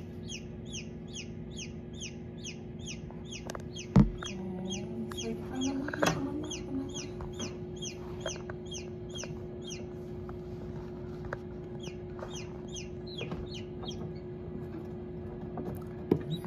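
Newly hatched chicks peeping inside an incubator: a steady run of short, falling peeps, about three a second, over a steady hum. A single knock sounds about four seconds in, and the peeping thins out near the end.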